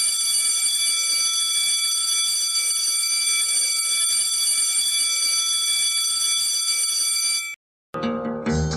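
Steady electronic buzzer tone, shrill and unchanging with many overtones, held for about eight seconds and then cut off abruptly. Music starts up shortly before the end.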